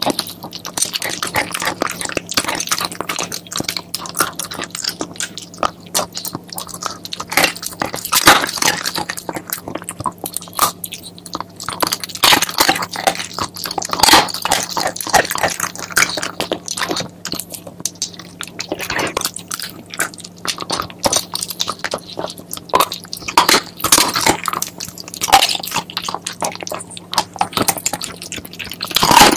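Shiba Inu chewing a chicken foot, its teeth crunching through the bones in quick, irregular crunches and bites.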